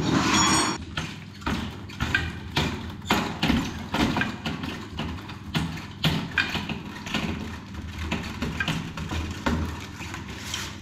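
Irregular knocks, clunks and scrapes of hands working an over-sink electric water heater and its pipe fittings loose. The loudest scraping comes in the first second, and a steady low hum runs underneath.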